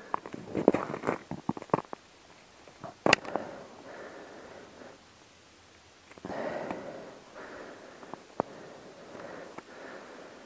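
Small clicks and knocks from handling an ice fishing rod and reel while jigging a minnow, with one sharper click about three seconds in. Soft breaths and rustles come in twice in the second half.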